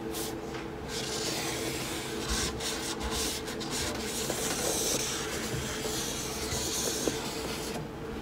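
Sharpie marker tip rubbing and scratching across a canvas textured with modeling paste as long, continuous lines are drawn. The steady scratch starts about a second in and stops just before the end.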